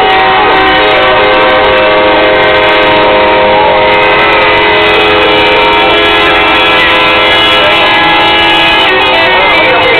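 Truck air horns sounding in long, steady multi-note chords, loud enough to overload the recording. Near the end the notes start to change pitch in steps.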